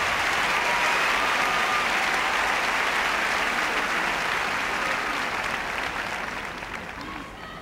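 Large arena crowd applauding, loudest in the first few seconds and dying down toward the end.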